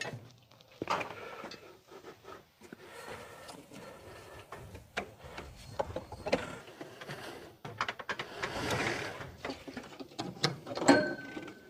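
Scattered clicks, rattles and light knocks of hands working a metal foot-peg tie-down and a motorcycle on a wooden trailer deck, with no steady rhythm.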